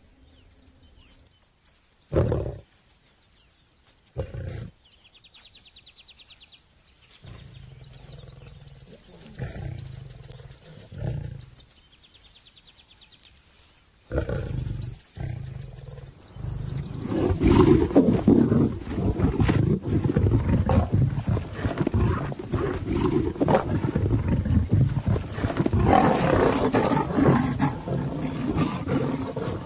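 Lions fighting, snarling and growling. A few short growls come in the first half, then from about halfway through there is continuous loud snarling and roaring.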